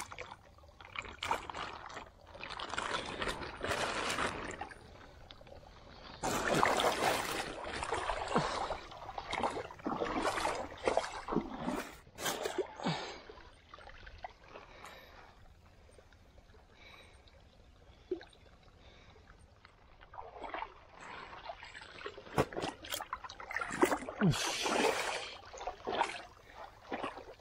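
Shallow pond water splashing and sloshing in irregular bouts as fish are caught and handled by hand, with a quieter stretch about halfway through.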